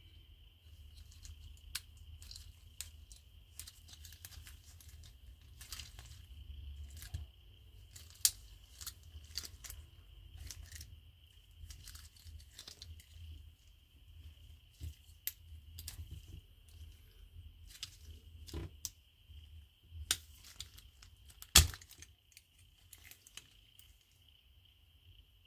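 Hands working Hot Wheels blister-card packaging: cardboard and plastic tearing and crinkling, with scattered sharp clicks at irregular intervals, the loudest a few seconds before the end.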